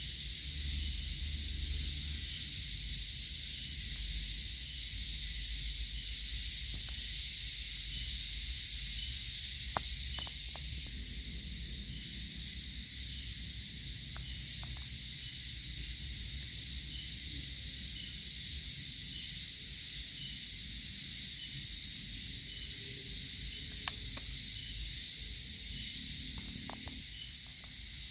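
Steady high-pitched insect chorus, with a fainter chirp repeating about every two-thirds of a second, over a low rumble and a few light clicks.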